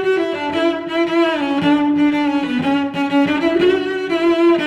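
Background music: a slow bowed-string melody with long held notes that slide from one pitch to the next.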